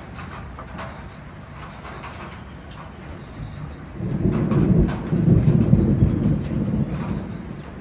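Thunder rumbling: a low rumble starts suddenly about four seconds in and rolls on for about three seconds, over light high clicks.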